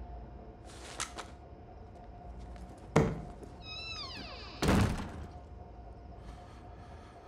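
A door is banged open and slammed shut. A sharp knock comes about three seconds in, then a brief squeaky creak falling in pitch, then a heavy slam that is the loudest sound.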